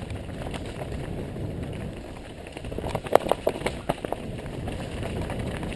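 Mountain bike rolling over a rough dirt trail, with a steady low rumble of tyres and wind on the bike-mounted microphone. About three seconds in, a quick run of sharp clatters and knocks as the bike rattles over rocks.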